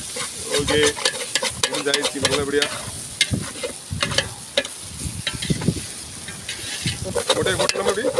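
Perforated metal ladle scraping and clattering against the side and bottom of a large metal pot in irregular strokes as shredded tuna is stirred. The tuna mash sizzles as it fries over the fire.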